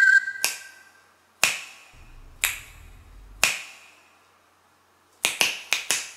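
Finger snaps keeping time in a break of an upbeat backing song: four single snaps spaced evenly about a second apart, then a quick run of snaps or clicks near the end as the song comes back.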